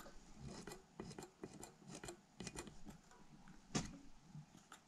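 Faint, scattered clicks and taps of small metal parts being handled on an Edelbrock four-barrel carburetor body, with one sharper knock near the four-second mark.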